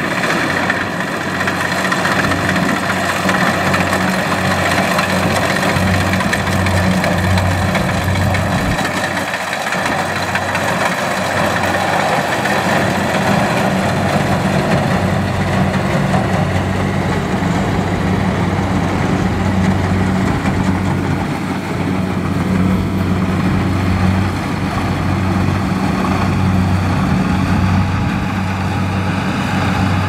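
Rice combine harvester running: a steady engine drone with a low, slightly wavering hum and a wide mechanical rush over it.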